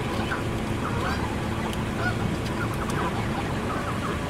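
Canada geese giving short calls, several in a row, over a steady low rumble.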